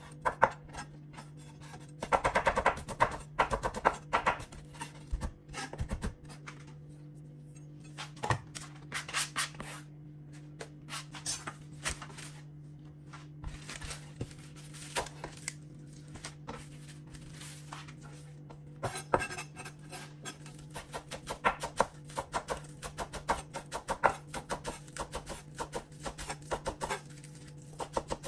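Chef's knife chopping on a wooden cutting board: quick runs of sharp knocks as the blade hits the board, with a quieter stretch in the middle while the spring onions are laid out, then steady chopping of spring onions through the second half.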